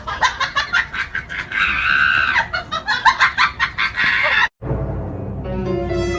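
A rapid run of short animal calls, with one longer held call about two seconds in. The calls stop abruptly at a cut about four and a half seconds in, and background music follows.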